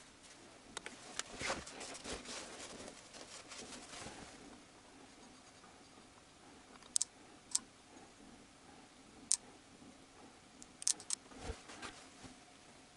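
Faint rustling as a crankpin journal is wiped and a micrometer is handled. Later come a few short, sharp metallic clicks as the micrometer is set and adjusted on the crankshaft journal.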